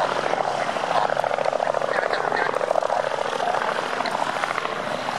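Robinson R44 helicopter in flight, its two-bladed main rotor giving a fast, steady beat over the engine.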